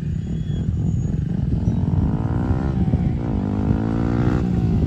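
Single-cylinder sport motorcycle engine revving as it is ridden: the pitch rises, dips about three seconds in, climbs again and drops near the end.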